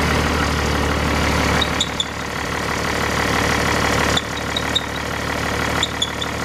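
Toyota Land Cruiser 60-series diesel engine idling steadily, just started. A few short high chirps sound about two, four and a half and six seconds in.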